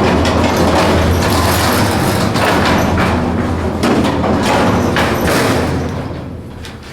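Freight elevator doors sliding, a loud rumbling run with a low hum and repeated knocks that eases off near the end.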